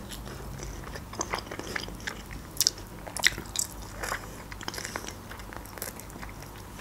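Close-miked chewing of a chicken wing eaten by hand, with scattered wet smacks and sharp mouth clicks as the meat is bitten and sucked from the bone.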